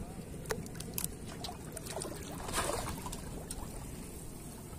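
Shallow pond water lapping and lightly splashing around a wader, with a scattering of small clicks and ticks and a brief hiss of water about halfway through.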